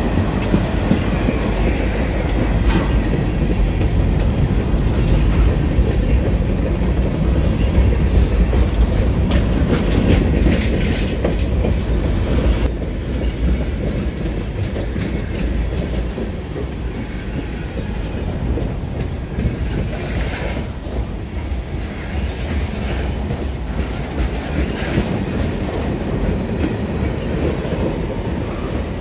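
Canadian National freight train's tank cars and boxcars rolling past close by: a steady low rumble of wheels on rail, with clacks as the wheelsets cross rail joints. The sound eases slightly about halfway through.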